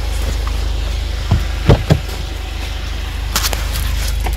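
Jeep driving on a muddy track: a steady low drone of engine and road noise, with a few sharp knocks about a second and a half to two seconds in, and a lighter one later.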